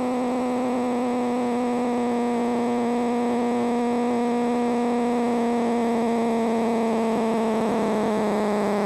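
Faulty amplifier putting a loud, steady droning tone with hiss through its speaker, the amplifier's fault noise, with the pitch sagging slightly near the end.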